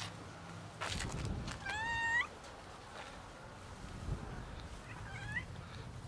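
Black-and-white cat meowing twice: two short calls about three seconds apart, each rising in pitch at the end, the first louder. A rustle comes just before the first meow.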